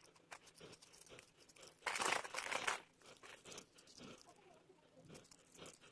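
Faint crinkling and rustling as pine cones, ribbon and pipe cleaners are handled, with scattered small clicks and one louder rustle about two seconds in.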